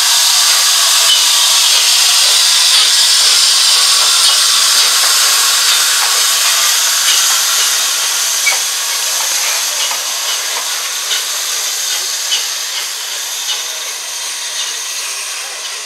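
LNER A3 Pacific 60103 Flying Scotsman's cylinder drain cocks blowing off steam in a loud, steady hiss as the locomotive starts away. The hiss fades slowly as it draws off, with a few faint clicks.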